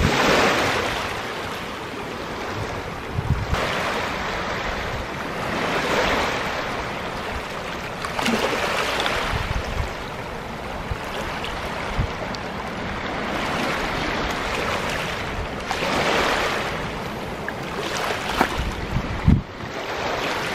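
Small sea waves lapping and washing onto a pebble shore, swelling and easing off every few seconds. A sharp knock near the end.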